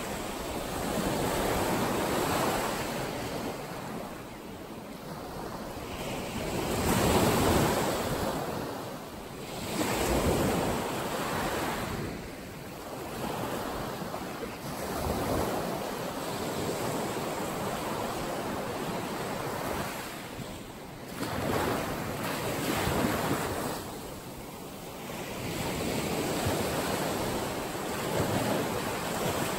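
Ocean surf washing ashore, a steady hiss of water that swells and eases every few seconds as each wave comes in.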